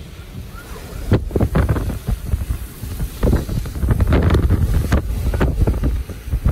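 Hurricane-force wind gusting against the microphone with driving rain. The wind noise jumps to loud, uneven gusts about a second in.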